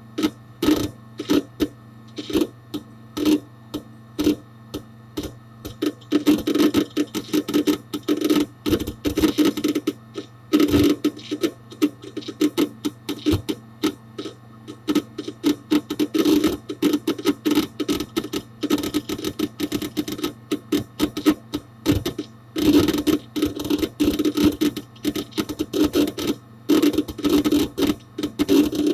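Hard disk drive inside a Dell Dimension 4700 desktop, heard close up from inside the case, seeking under disk activity. Irregular clicks and bursts of rapid chattering run over a steady low hum, busiest from about six seconds in.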